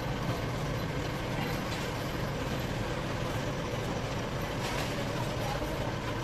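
Steady low rumble of street ambience, with no single distinct event standing out.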